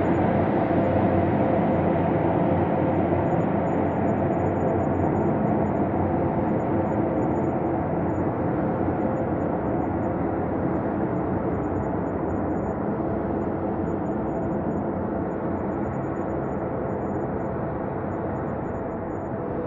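Ambient space drone: a dense, steady low hum with sustained tones woven through it, slowly getting a little quieter.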